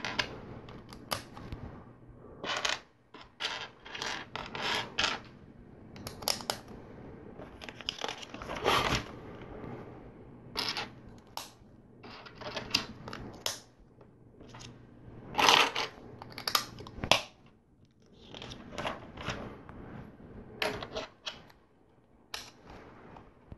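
Plastic LEGO plates and bricks clicking and clattering as they are handled, picked from a loose pile and pressed together: an irregular run of short clicks and rustles.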